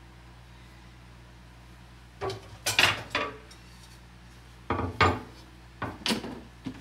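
Kitchen clatter as a wooden cutting board is pulled out from among the dishes by the sink: sharp knocks and clinks of wood and kitchenware, in one cluster about two seconds in and another from about five seconds in.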